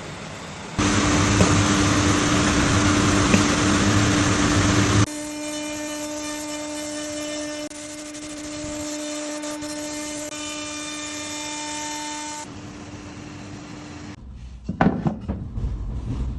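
CNC router spindle running and cutting wood: a loud steady whine with heavy cutting noise starts about a second in, then eases after about five seconds to a quieter steady whine. The whine stops about two seconds before the end, followed by a short clatter.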